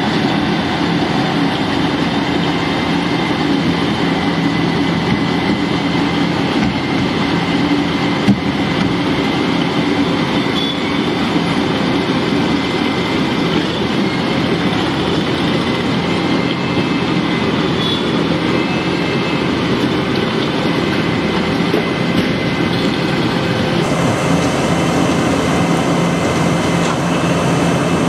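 Wirtgen W220 cold milling machine cutting an asphalt surface layer, its diesel engine running steadily under load while the milling drum grinds up the asphalt: a loud, even mechanical din with a constant hum. One sharp knock about eight seconds in.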